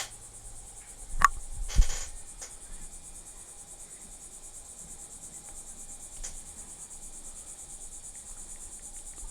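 Crickets chirping in a steady high, fast-pulsing chorus. Two sharp thumps a little over a second in stand out above it.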